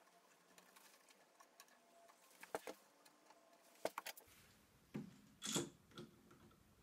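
Faint clicks and knocks of metal bar clamps being picked up and fitted to a wooden bookcase top. The loudest knock comes about five and a half seconds in.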